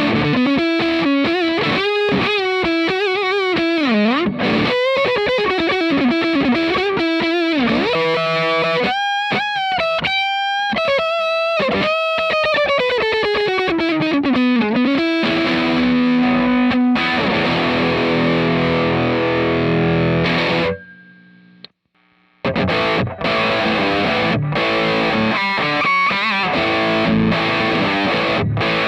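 Electric guitar played through a Cort x Moollon CMV15 amp with an overdriven tone. It plays a lead line full of string bends and vibrato, then sustained chords. The playing stops dead for about a second and a half three quarters of the way through, then starts again.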